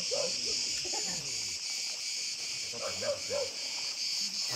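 A steady, shrill chorus of insects runs throughout. Over it come short high yelps from dogs, a few just after the start and a run of them around three seconds in.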